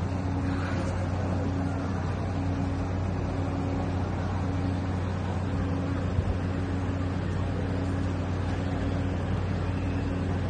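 Steady low mechanical drone, like an engine or motor running, with a higher hum that cuts in and out about once a second. A short knock comes about six seconds in.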